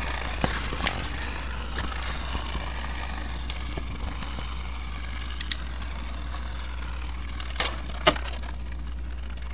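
Metal Beyblade spinning tops whirring as they spin on a cardboard box floor, with scattered sharp clicks as they knock into each other and the box walls; the two loudest clicks come near the end.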